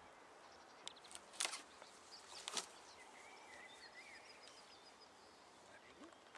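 Quiet open-air ambience with a few sharp clicks and knocks in the first few seconds. A little past halfway come faint bird calls: a short wavering twitter, then a fast run of about eight high notes.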